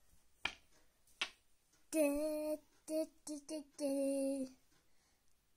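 A girl singing a short phrase of held notes, two long and three short in between, after two light clicks.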